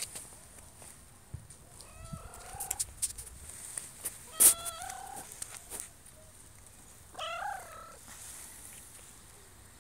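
Cat meowing three times, short calls bending in pitch, a couple of seconds apart. A sharp click comes just before the middle call.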